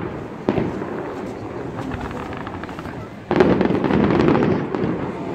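Fireworks bursting: a sharp bang about half a second in, then a louder burst a little past halfway that trails off over a couple of seconds with rumble and crackle.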